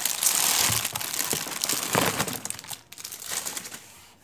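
Dense crinkling and crumpling of paper and tape as a handmade paper squishy is handled, tailing off near the end.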